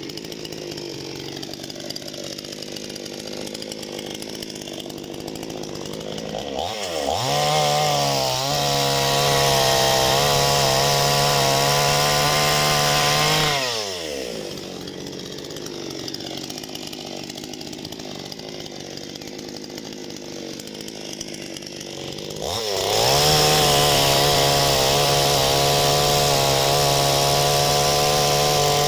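Parma BP-058 two-stroke chainsaw with an Oregon chain idling, then run up to full throttle twice for about six seconds each, holding steady high revs while cutting firewood, and dropping back to idle in between.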